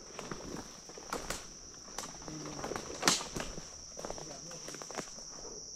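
Insects trilling steadily on one high note, with scattered dry crackles and snaps of footsteps in leaf litter; the loudest snap comes about three seconds in.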